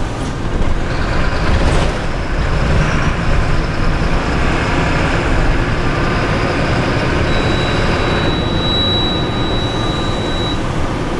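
Four-cylinder diesel engine of a Mercedes-Benz city bus running under load, heard from the driver's cab with road noise. About seven seconds in, a steady high beep sounds for about three seconds: the telemetry warning, which the driver bets was set off by over-revving the engine.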